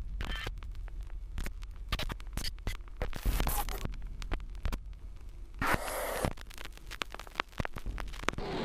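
Irregular crackling clicks with a few short, scratchy bursts of noise, over a low hum.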